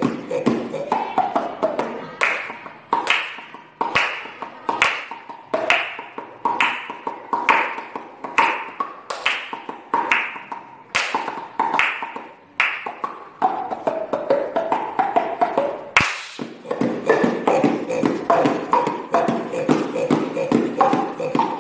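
Hand music: two boys making pitched pops and claps with cupped hands at their mouths, the pitch of the pops changing so that a tune forms. Strong claps fall about once every 0.8 s through the middle, with a quicker, denser run of pops near the end.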